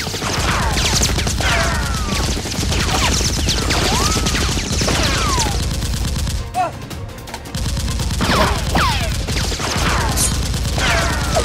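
Rapid automatic gunfire sound effects dubbed over a Nerf blaster fight, with repeated falling whistles over the shots. The firing breaks off for about a second a little past the middle, then resumes, with background music under it.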